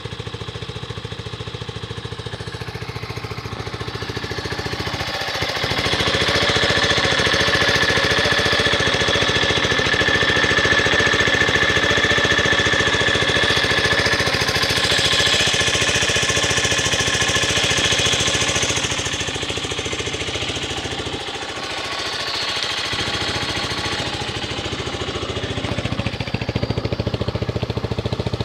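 Zongshen 250 motorcycle's air-cooled single-cylinder four-stroke engine running steadily with a rapid, even mechanical beat and no revving. It gets louder about five seconds in, dips briefly past the twenty-second mark, and rises again near the end.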